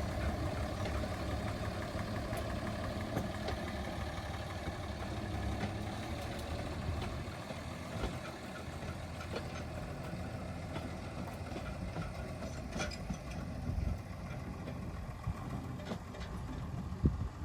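Small diesel locomotive engine running at a steady low idle, the hum easing off after about seven seconds, with scattered clicks and one sharp knock near the end.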